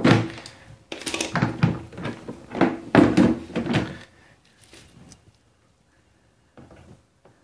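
Hollow plastic knocks and scrapes from a plastic toilet cistern being handled and turned over, loudest in the first four seconds, then a few faint clicks as pliers grip its cover lock.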